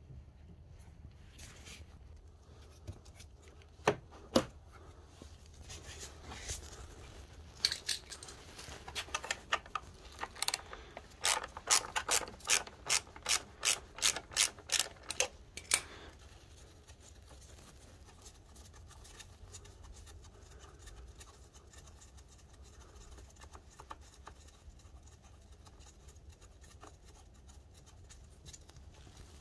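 A ratchet wrench clicking as it turns a bolt on the scooter: two sharp clicks, then a run of regular click strokes about two a second, then only faint small clicks and rubbing.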